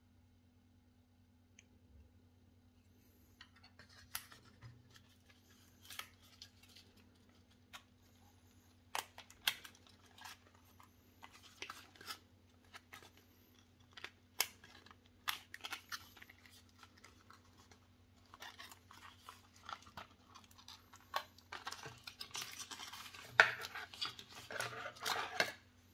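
Webcam packaging being opened and handled: scattered sharp clicks and short crinkling rustles, coming thicker and louder over the last few seconds, over a faint low steady hum.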